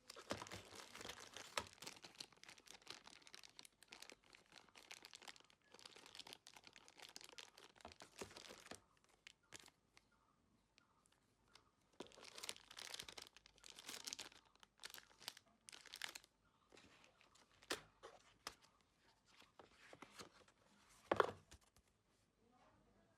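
Packaging being handled and unwrapped: crinkling and tearing in spells, then a few sharp clicks, the loudest one near the end.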